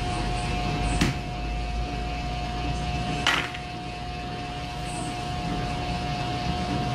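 Steady low rumble with a constant hum. Two short sharp clicks come about a second in and a little over three seconds in.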